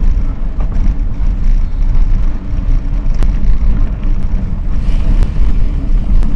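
Mountain bike rolling along a forest trail, recorded on the bike: a loud, constant low rumble of tyres and air on the microphone, with a few sharp rattles and clicks from the bike.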